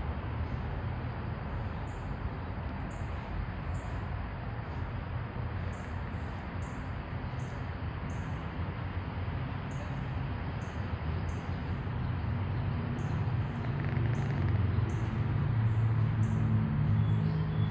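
Night ambience: short high insect chirps repeating irregularly about once or twice a second over a steady low rumble, which grows louder in the last few seconds.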